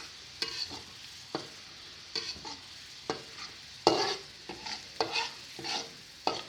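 Chopped garlic frying in hot oil, stirred constantly with a utensil that scrapes and knocks against the pan about ten times at an irregular pace, over a steady faint sizzle. The stirring keeps the garlic from burning while it turns golden.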